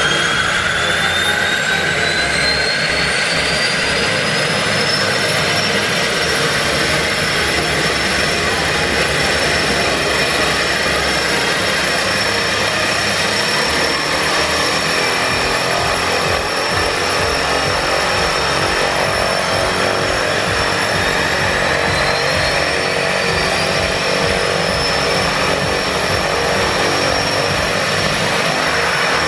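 de Havilland Canada DHC-6 Twin Otter's Pratt & Whitney PT6A turboprops starting up: the first engine's turbine whine climbs in pitch over the first several seconds, then settles to a steady idle whine and propeller roar. About two-thirds of the way through, the second engine starts and its whine rises the same way over several seconds.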